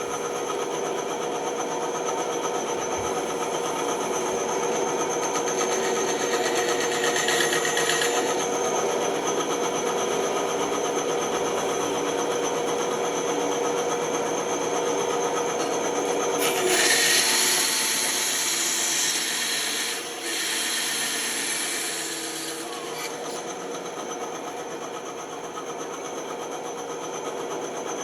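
Bandsaw running with a steady hum as its blade cuts through wood, making a rasping noise. The cut grows louder and hissier for several seconds a little past the middle, then eases back.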